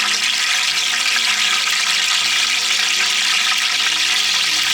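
Whole spices (cinnamon, cumin, cloves, cardamom) sizzling in hot oil in a large biryani pot, a loud steady hiss.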